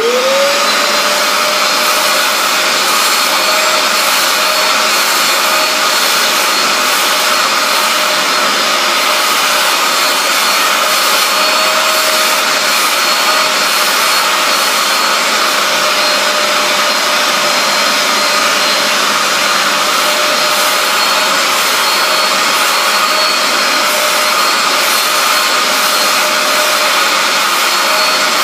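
Bissell SpotClean Pro carpet cleaner's motor spinning up right at the start with a rising whine, then running steadily as its hand tool scrubs and sucks water back out of a wet fabric headrest.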